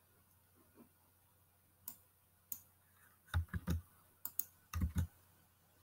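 Computer mouse and keyboard clicks: two single clicks about two seconds in, then two quick clusters of heavier clicks and key taps.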